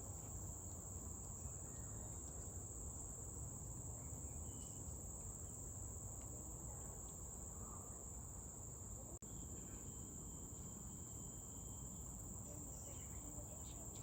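Insects making a steady, high-pitched drone over low outdoor background noise.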